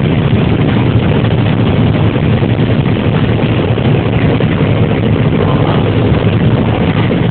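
John Deere 9770 combine running steadily while harvesting corn: a constant low engine and machinery drone, heard from inside the cab.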